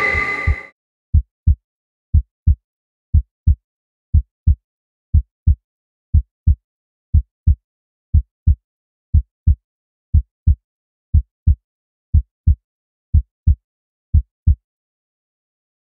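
Heartbeat sound effect: a slow, steady double thump, lub-dub, about once a second, fourteen times, then it stops.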